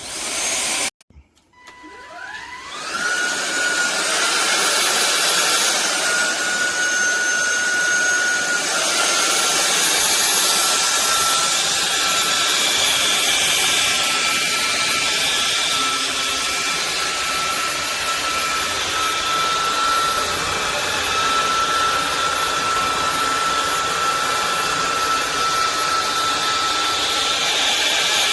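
Cordless stick vacuum motor spinning up with a quickly rising whine, then running steadily with a high whine and a hiss of air. The whine's pitch shifts slightly several seconds in.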